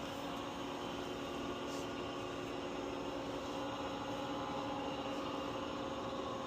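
Omni Machine 1336OM 13x36 engine lathe, with its 1.5 HP single-phase motor, running steadily in reverse after being stopped and switched to the opposite direction. It gives an even mechanical hum with a steady gear whine.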